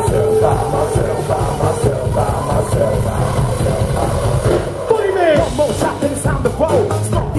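Rap-rock band playing live at full volume, with a sweep falling in pitch about five seconds in.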